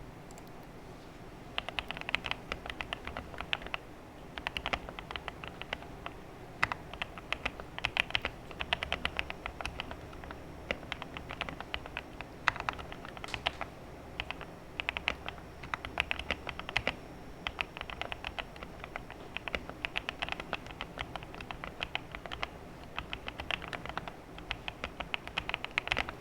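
Typing on an Infinity 75 (Next Time 75) mechanical keyboard fitted with JWK Ultimate Black linear switches: quick runs of key strokes broken by short pauses, starting about a second and a half in.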